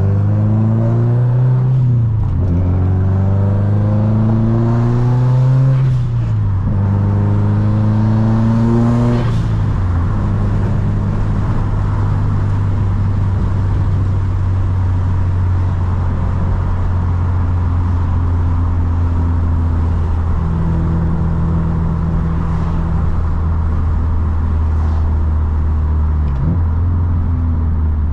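Subaru WRX STI turbocharged flat-four engine accelerating hard through three gears, the note climbing and dropping at upshifts about 2, 6 and 9 seconds in. After that it settles into a steady cruise, with a brief dip and pick-up near the end.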